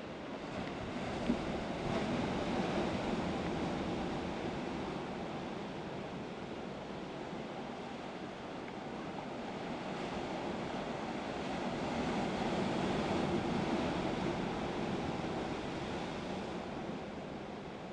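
Sea surf breaking and washing over rocks, swelling and easing twice, with wind on the microphone; a single brief knock about a second in.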